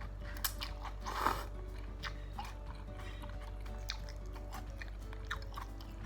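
Close-miked eating: chewing and biting chicken noodles and meatballs, with scattered short wet smacks and clicks of the mouth.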